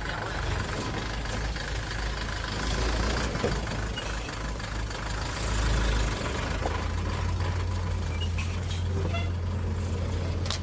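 Remote-control toy excavator's electric motors running with a steady low hum while it lifts its boom; the hum shifts to a higher, steadier pitch about six seconds in.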